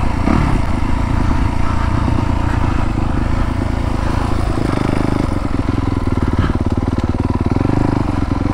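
Yamaha YZ250FX four-stroke single-cylinder dirt bike engine running under load as the rider works the clutch through a trail move in third gear. The engine note changes about halfway through.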